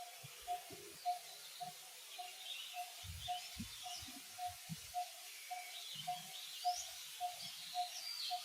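Birds calling: a single low, hollow note repeated steadily about twice a second, with higher chirps and twitters over it. A few soft low thumps sound in between.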